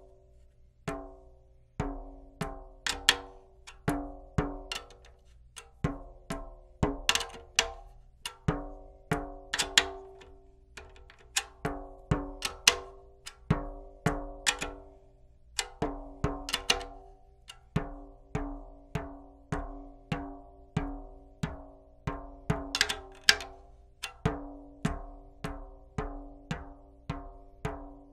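A 10-inch tom's clear Evans drumhead being tapped during tuning, about two taps a second. Each tap gives a short pitched ring.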